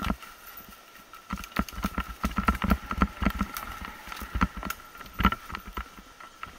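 K2 Razorback mountain bike rattling and knocking as it rides fast down a rough dirt trail, with a dense run of jolts from about a second in to about five seconds in. A faint steady high whine sits underneath.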